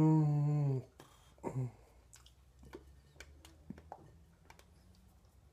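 A man's long, wordless voiced sound, sinking slightly in pitch, that cuts off about a second in, followed by a short grunt. After that come only faint scattered taps and clicks of hands moving and touching while signing.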